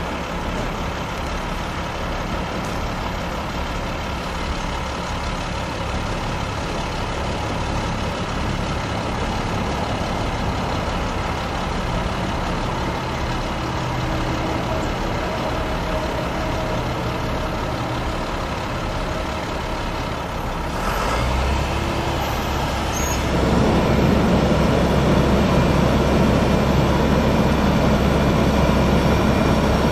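The International 7400 bucket truck's DT466 six-cylinder diesel engine running steadily. About two-thirds of the way in the engine note grows louder and deeper, and a couple of seconds later it gets louder and fuller again, as the engine works the aerial lift that raises the boom.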